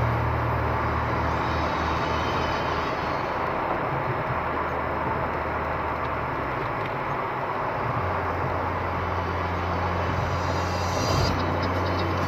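In-cabin road noise of a GM Vectra 2.0 driving at highway speed on a wet road: steady tyre hiss and a low engine drone, the drone shifting about eight seconds in as the car slows.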